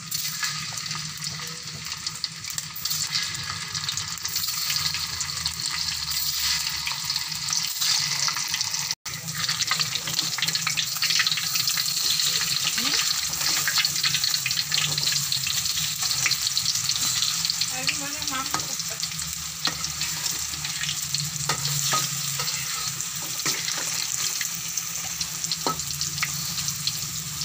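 Food frying in hot oil in a metal wok: a steady sizzle full of small crackles, with a spatula now and then stirring and scraping the pieces against the pan.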